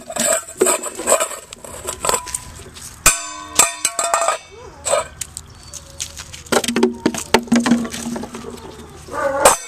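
Stainless steel dog bowl clanging on concrete, ringing on for about a second, among scattered knocks and scuffs.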